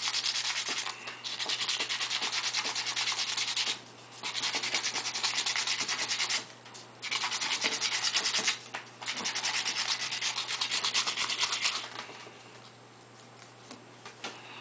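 Low-grade sandpaper rubbed in quick back-and-forth strokes over the commutator end of a Meyer E-60 H snow plow motor armature, in several runs with short pauses, dying away about twelve seconds in. The blackened commutator is being cleaned back to bright metal for good brush contact.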